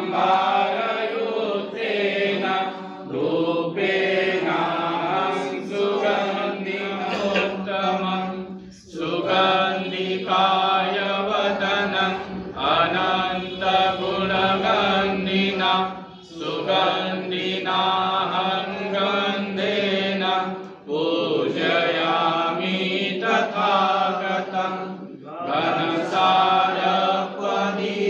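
Buddhist devotional chanting in long phrases of several seconds, each separated by a brief pause, over a steady low drone.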